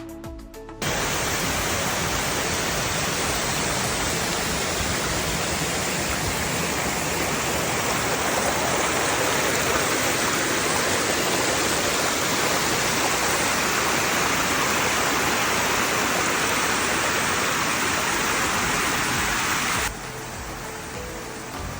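Rushing water of a hot 'boiling' river: a loud, steady rush that starts suddenly about a second in and drops away sharply near the end.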